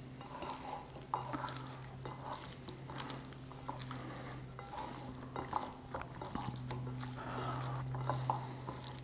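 Hands mixing oiled, spiced raw chicken thighs in a ceramic bowl: soft, irregular squishing with light taps against the bowl, over a steady low hum.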